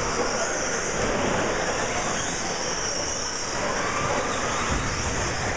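RC stadium trucks racing: high-pitched motor whines rising and falling over a steady rush of noise.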